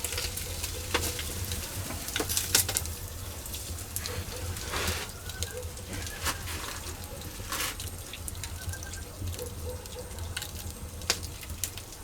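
Spanish mackerel sizzling on a wire grill over a wood-and-charcoal fire, with scattered crackles and pops.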